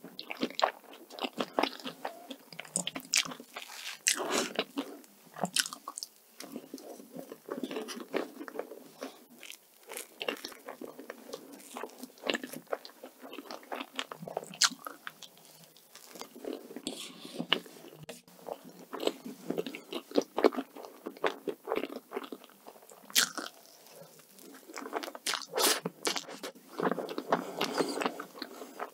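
Close-miked eating sounds: a person chewing and smacking mouthfuls of soft chocolate cream cake, with many irregular small wet clicks.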